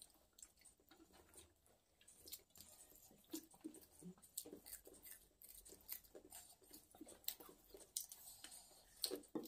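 Faint eating sounds: fingers mixing rice on a steel plate and chewing, with scattered small clicks and taps. A sharper clink comes near the end.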